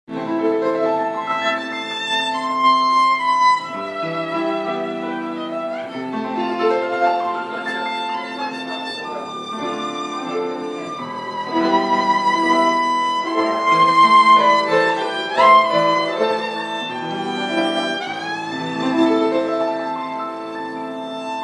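Violin playing a lively melody with the bow, sliding up into several of its high notes.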